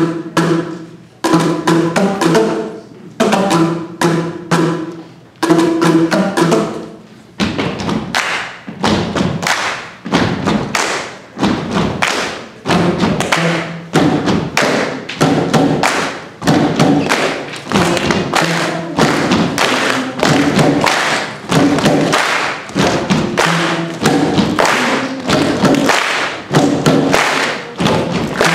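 Boomwhackers, tuned plastic percussion tubes, struck in rhythm to play a medley of pitched notes. The notes come in spaced groups at first, then a dense, quick run of strikes from about seven seconds in.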